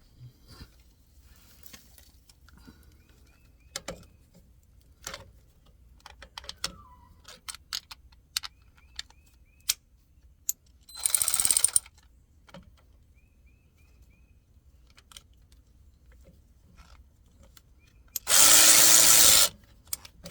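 Scattered metallic clicks and knocks of hand tools and fittings being handled, with two short rushes of hissing noise: one about 1 s long around the middle, and a louder one about a second and a half long near the end that starts and stops abruptly.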